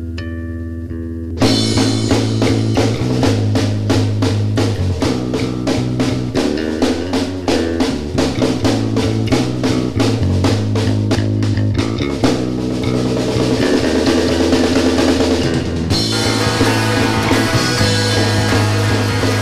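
Rock band playing an instrumental passage with no singing. Bass guitar alone for the first second or so, then drum kit, electric guitar and bass come in together on a steady beat. About three-quarters of the way through, the sound becomes fuller and brighter.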